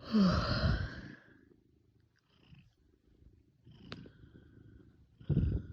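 A person's intense hiccups, three in a row: a loud voiced hic with a short falling squeak at the start, a sharp click about four seconds in, and another loud hic near the end.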